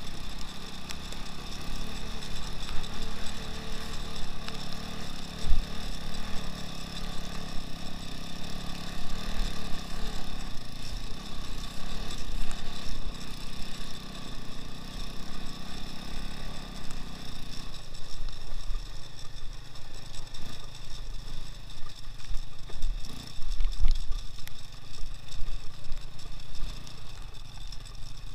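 Engine of a 2x2 all-wheel-drive off-road motorcycle running steadily under way, its note dropping lower about two-thirds of the way through.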